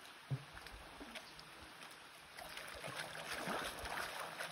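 Small stream running and splashing under a log crossing, growing a little louder about two seconds in, with a few faint knocks of boots on the logs.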